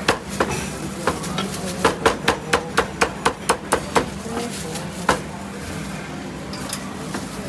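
Heavy Chinese cleaver chopping crispy-skinned roast pork on a thick wooden chopping block. A few single chops come first, then a quick run of about ten chops at roughly four a second, then one last chop before it stops.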